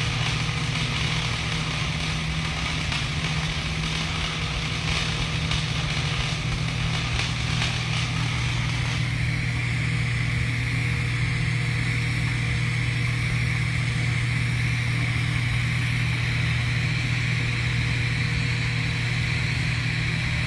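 TIG welding arc: a steady buzzing hum with hiss that starts abruptly as the arc is struck and holds for the whole run.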